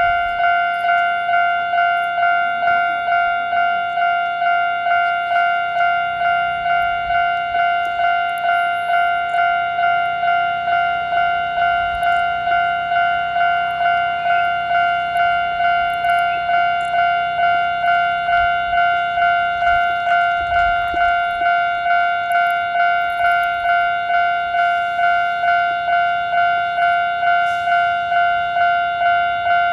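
Japanese railway level-crossing warning bell ringing: a single bright tone struck over and over, a little under twice a second, each stroke fading quickly. It signals that a train is approaching and the crossing is closed.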